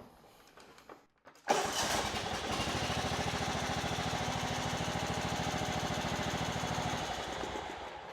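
Kohler Command CV15 single-cylinder engine starting suddenly about a second and a half in, running steadily with an even pulse, then winding down near the end as it is shut off. It is running after a new ignition coil was fitted to cure a crank-but-no-start fault.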